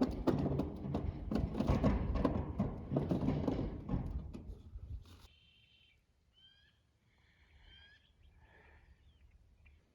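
A loud rustling, clattering noise with many clicks that stops about five seconds in, followed by faint short chirping bird calls.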